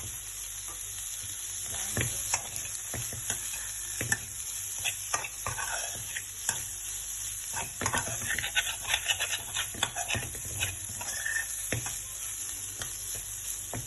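Onion, garlic and green peas sizzling in oil in a frying pan while a spatula stirs them, scraping and knocking against the pan at irregular moments over a steady sizzle.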